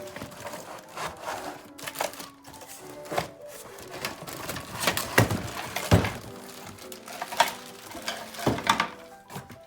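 Background music, with the clatter and rustle of plastic playset parts and packaging being handled: a series of sharp clicks and knocks, loudest about five and six seconds in.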